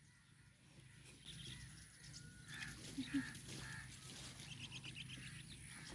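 Quiet outdoor ambience with faint, scattered bird calls, including a quick run of repeated chirps near the end.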